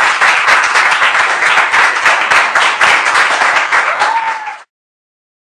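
Audience applauding at the end of a live song, a dense patter of many hands clapping. The applause cuts off abruptly a little over four seconds in.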